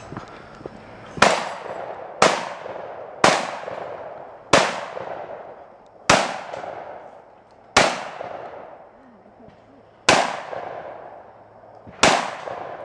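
Shotgun fired eight times: four shots about a second apart, then four more with longer pauses, each loud report followed by a tail of echo that dies away.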